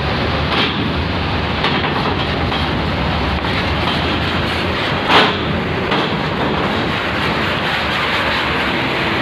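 Large coach bus rolling off a ferry's steel ramp and passing close by: a steady engine and tyre rumble, broken by a few clanks from the metal ramp plates, the loudest about five seconds in.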